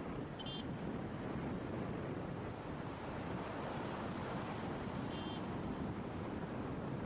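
Steady rushing outdoor noise of running water and wind on the microphone, with two brief faint high chirps, about half a second in and again about five seconds in.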